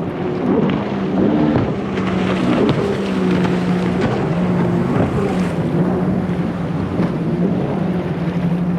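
A small boat engine running steadily, its pitch wavering slightly, over water splashing and wind on the microphone.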